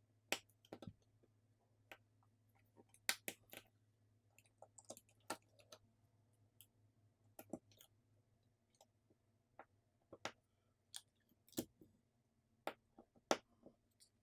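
Irregular light clicks and taps of small smartphone parts and tools being handled as a phone is reassembled: flex connectors, screws and plastic or metal pieces being pressed and set down.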